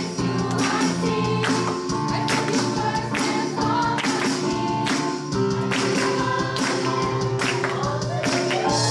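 An upbeat praise-and-worship song, with children singing along and clapping on a steady beat of about one and a half claps a second.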